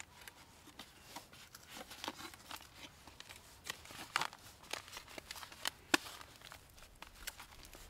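Scattered light clicks and crinkling rustles, irregular and unpitched, with a few sharper ticks.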